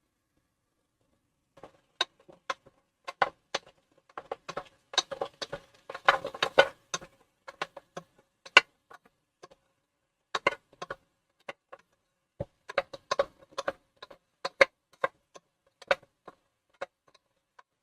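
A utensil clicking and scraping against a frying pan as pieces of seitan are moved around in teriyaki sauce: irregular sharp taps starting about a second and a half in, busiest around six seconds in.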